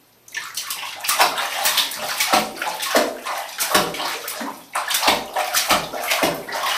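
A toddler splashing his hands in bathwater in a tub: a quick, irregular run of splashes and sloshing that starts a moment in.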